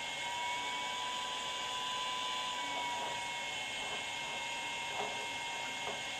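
Puhui T-862++ infrared BGA rework station running as its top heater reflows a MacBook Pro graphics chip: a steady whir and hiss with a high whine, and a couple of faint clicks near the end.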